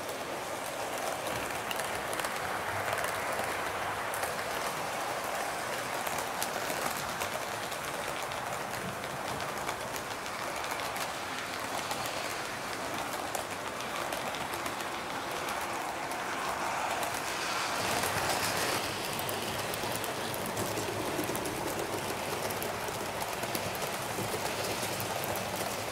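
Model train running along the layout track: a steady rolling rattle of wheels on rails, briefly louder about two-thirds of the way through.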